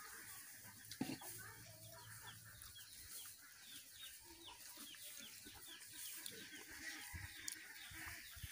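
Faint chickens clucking, with a run of quick, high, falling chirps from about two seconds in until near the end. There is a single soft knock about a second in.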